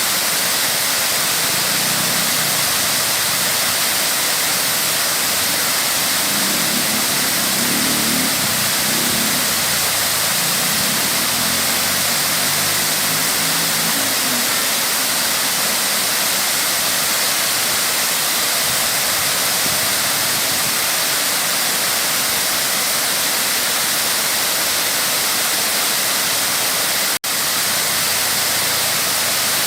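Waterfall rushing in a steady, loud roar of falling water, with a split-second dropout near the end.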